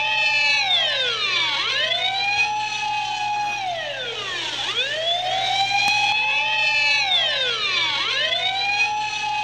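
Several sirens wailing together, their pitches sweeping slowly up and down in overlapping rises and falls of a few seconds each.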